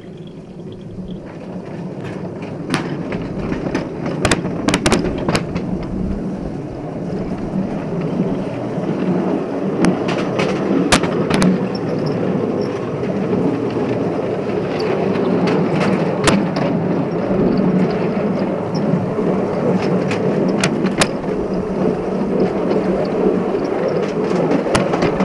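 7¼-inch gauge electric ride-on train running along its track: a steady rumble of wheels on rail that builds over the first few seconds, with scattered sharp clicks.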